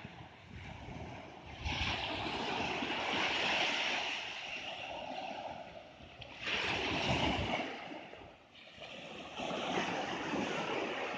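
Small waves breaking and washing up a sandy beach, the surf swelling three times, each wash lasting a couple of seconds.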